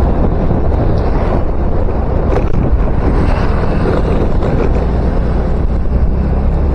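Heavy wind noise on the microphone over a motorcycle's engine and road noise while riding.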